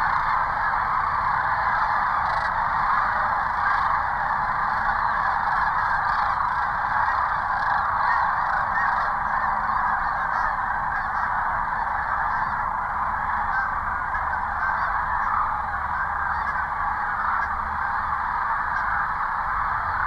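A large flock of sandhill cranes calling all at once, a dense, steady chorus with no breaks.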